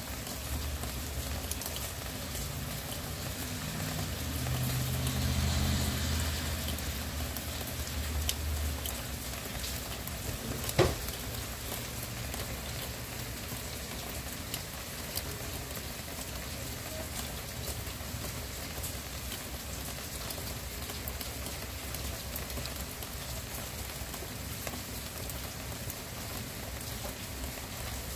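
Steady rain falling, an even hiss of drops. A low rumble swells under it through the first nine seconds and fades, and a single sharp click stands out about eleven seconds in.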